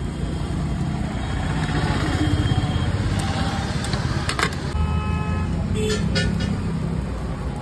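Steady street traffic rumble with a vehicle horn honking briefly about five seconds in, and a couple of sharp clicks just before it.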